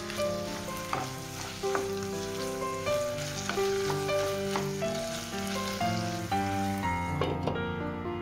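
Diced tomatoes, ham and bell pepper sizzling in a frying pan while a wooden spatula stirs and scrapes through them, with light taps against the pan. The sizzling drops away near the end. Background music plays throughout.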